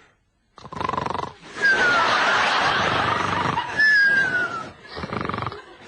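Vocal sound effects: a loud, rough roaring noise made with the voice, with two short falling whistles in it, stopping shortly before the end.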